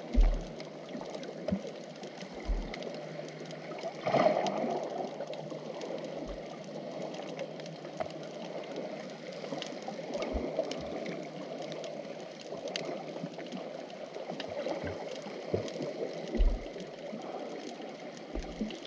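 Underwater ambience in shallow, wave-stirred sea picked up through a camera housing: a steady rush of moving water with scattered faint clicks, swelling briefly about four seconds in, and a few short dull thumps.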